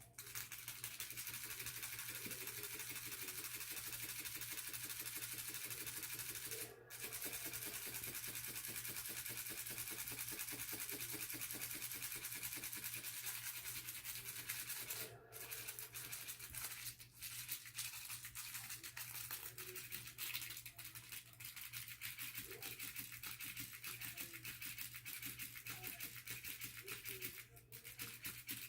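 Small battery-powered motor of a toy buzzing with a fast rattle, stopping briefly about four times.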